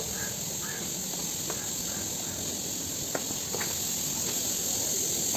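Footsteps in sandals on a paved lane, a few sharp slaps spaced about a second apart, over a steady hiss.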